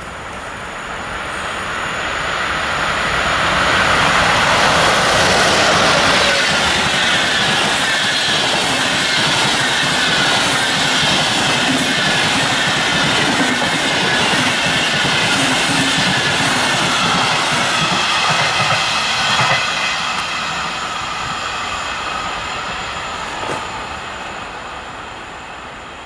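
A passenger train hauled by an EP07 electric locomotive passing close by. It grows louder over the first few seconds, then a long run of coaches rolls past with wheel clatter and a wavering high squeal, fading away over the last several seconds as the train recedes.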